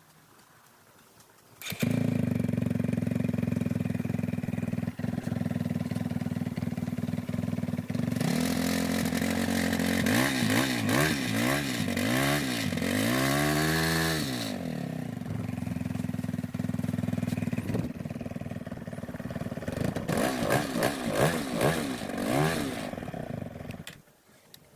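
Kawasaki D-Tracker 125's single-cylinder four-stroke engine catches suddenly and runs steadily. It is revved up and down in several quick blips in the middle, settles, is blipped again near the end, and then is switched off.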